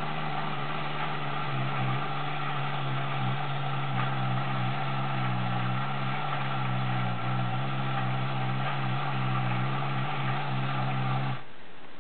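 Clockwork spring motor of a vintage German tinplate lighthouse toy running, driving the tin boat along its track with a steady mechanical whirring hum. It cuts off suddenly near the end as the boat reaches the lighthouse.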